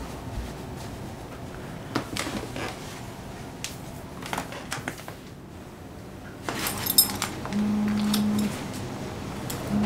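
Quiet room sounds with scattered light clicks and handling noises, then near the end a mobile phone vibrating: two steady buzzes, each about a second long.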